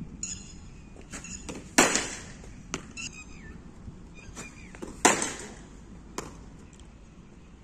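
Cricket net practice with a Robo Arm ball thrower: two loud sharp cracks about three seconds apart, each followed about a second later by a lighter knock, as the ball is flung and then met by the bat.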